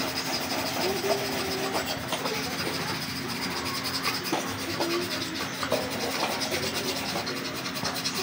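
Continuous scraping and rubbing as a grimy e-bike part is scrubbed clean of caked-on dirt.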